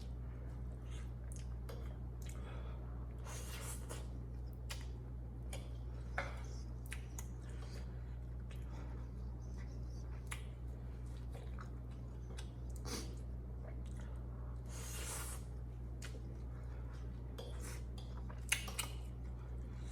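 A person eating spicy instant noodles up close: chewing with scattered wet clicks and two longer hissing bursts, over a steady low hum.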